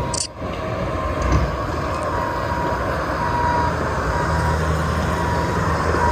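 Bobcat T740 compact track loader's diesel engine running steadily as the machine works, with an intermittent high tone over the low drone. The level drops briefly about a quarter second in.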